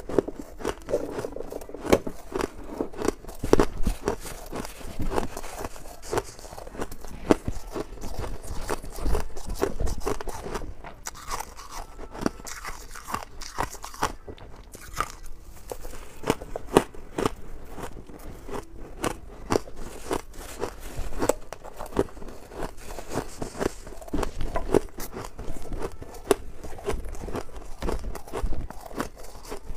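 Crunching of freezer frost being bitten and chewed, dense and irregular with several sharp crunches a second, along with a metal spoon scooping through frost in a steel bowl.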